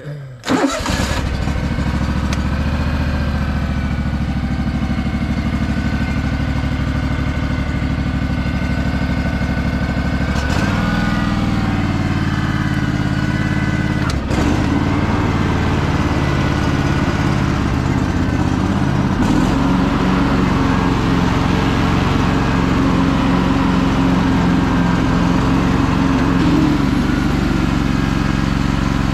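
Honda 16.5 engine on a Craftsman DLT3000 lawn tractor catching within the first second and then running steadily. Its note shifts about ten, fourteen and nineteen seconds in.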